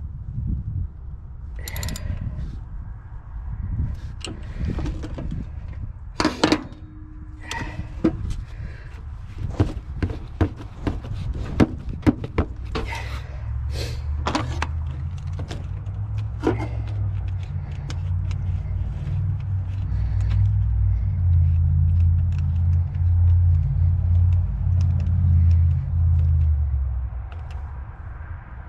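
Sharp metallic clanks and knocks of hand tools and parts being handled during a car thermostat replacement, many in the first half. A low rumble comes in about halfway through and grows louder toward the end.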